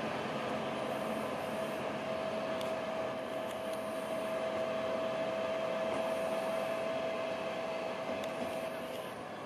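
Road-rail shunting vehicle running steadily as it moves a multi-car Class 803 electric train slowly through a depot yard, with a steady whine over the engine noise that stops near the end.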